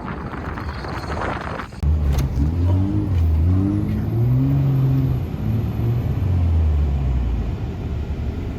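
A vehicle engine revving. About two seconds in it starts loud and low, rising and falling in pitch for the rest of the time.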